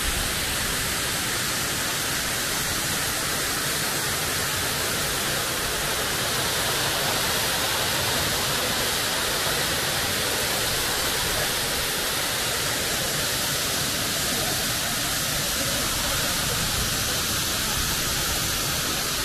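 Waterfall pouring down a steep rock slab into a pool: a loud, steady rush of falling water.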